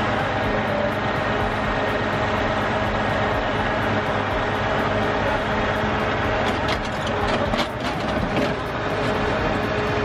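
Engine of a truck-mounted grapple loader running steadily under hydraulic load as it works its grapple over a boulder pile, with a brief noisier stretch about seven seconds in.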